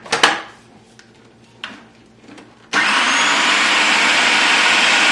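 Plastic clicks as the food processor's bowl and lid are twisted into place. About two-thirds through, the Braun EasyPrep 8-cup food processor's motor starts suddenly and runs empty with a steady, loud whir, now that the bowl is properly locked in.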